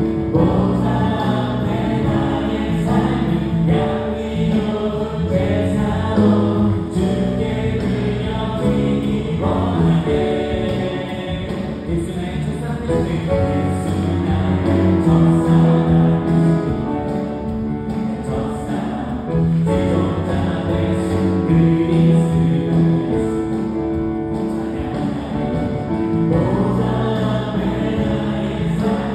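Live contemporary worship band playing a song with a group of voices singing: Yamaha Montage keyboard, electric guitar, bass and drums.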